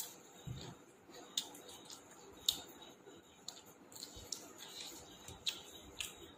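Close-miked eating sounds: chewing with short crisp clicks and crunches at uneven intervals, about one every half second to a second.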